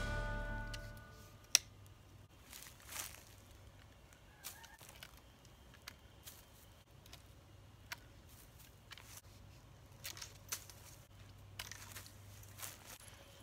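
Long-handled loppers cutting cedar branches: a string of sharp snaps at irregular intervals as the blades close through the wood, the loudest about a second and a half in, with the rustle of the cut foliage between.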